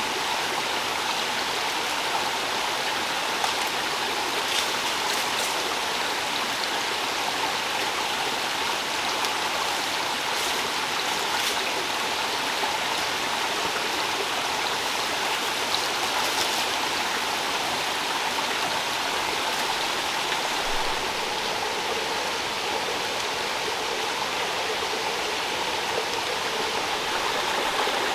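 Steady rushing of a forest stream, flowing water running evenly throughout.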